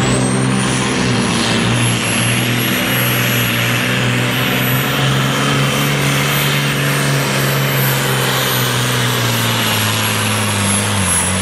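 Volvo pulling truck's turbocharged diesel engine running flat out under heavy load while it drags the sled, with a high, steady turbo whistle over it. The engine note drops slightly near the end as it is pulled down.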